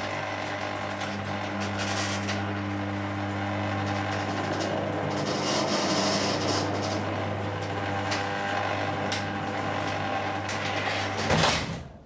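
Ceiling-mounted electric garage door opener running steadily as it pulls an up-and-over garage door down. The motor stops near the end with a clunk as the door shuts.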